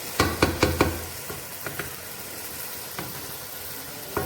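Onion-tomato masala sizzling steadily in a pan, with a quick run of about four sharp knocks in the first second, a few fainter ones after, and another knock near the end.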